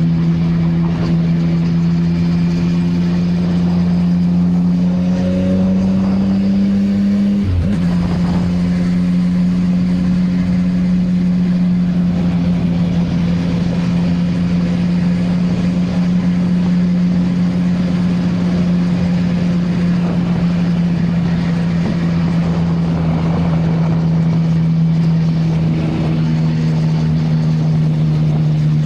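CFMoto 675NK's inline-three engine on its stock exhaust, pulling steadily. Its pitch creeps up for the first several seconds, breaks sharply for a gear change about seven seconds in, then holds steady at a cruise under wind and road noise.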